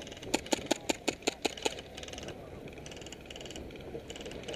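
An airsoft rifle firing a quick string of about eight sharp shots, roughly six a second, in the first two seconds.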